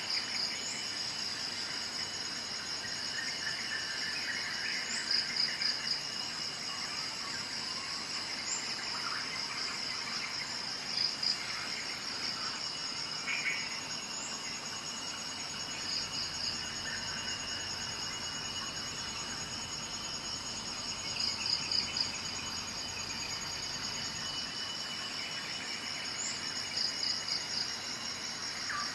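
Insects trilling steadily, with short louder pulsed bursts every few seconds, and a few scattered bird chirps.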